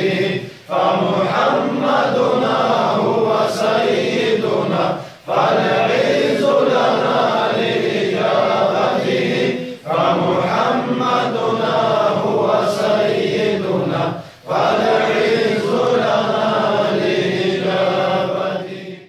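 Chanted Islamic devotional song (nasheed) sung in long, drawn-out phrases of about four and a half seconds each, with brief breaks between them. It cuts off abruptly at the end.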